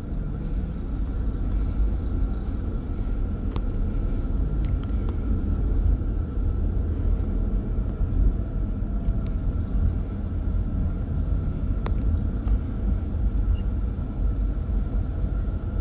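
Steady low rumble of a Hyundai car's engine and road noise, heard from inside the cabin while it drives, with a few faint scattered clicks.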